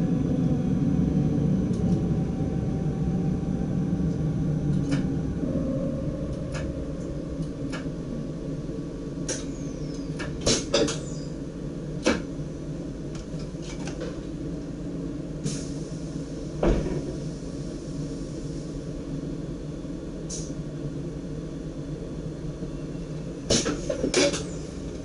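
Driver's cab of a DDZ double-deck electric train running along the line: a steady low rumble that eases over the first several seconds, broken by scattered sharp knocks and clicks, several close together near the end.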